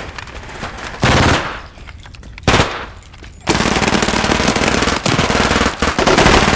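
Automatic gunfire: two loud bangs in the first half, then continuous rapid automatic fire from about halfway through.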